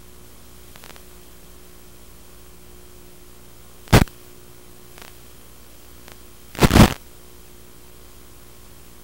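Steady hiss of an analog FPV video receiver's audio channel, with a faint hum. Two short, loud bursts of static come about four seconds in and again near seven seconds in, the second one longer. These are the sign of the plane's radio video link breaking up.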